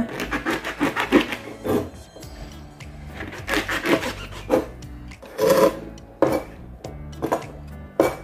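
Kitchen knife cutting through bundles of white beech mushroom stems on a plastic cutting board: a series of irregular chopping strokes, with background music underneath.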